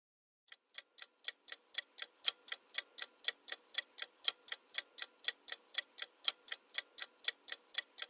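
Clock ticking, about four ticks a second with every other tick louder: a countdown timer sound effect counting down the guessing time.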